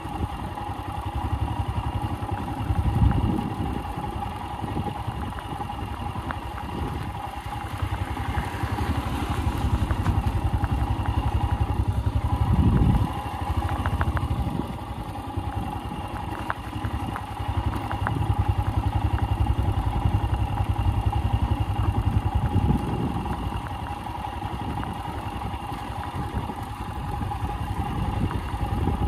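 Motorcycle engine running at low speed on a rough gravel track, swelling a few times as the throttle opens and easing off between, with a few light clicks partway through.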